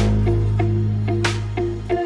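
Background music: held bass notes under a repeating melody, with a percussive hit about every 1.3 seconds.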